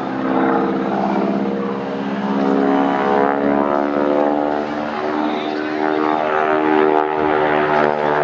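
A North American SNJ/T-6 Texan's nine-cylinder Pratt & Whitney R-1340 Wasp radial engine and propeller droning at power through an aerobatic dive and pull-up. The pitch drifts slowly as the aircraft manoeuvres.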